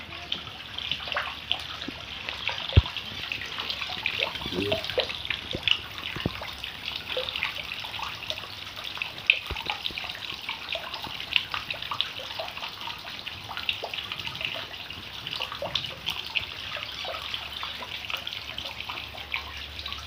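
Water splashing and trickling into a small lined garden fish pond from a pipe outlet, a steady patter of drops striking the surface.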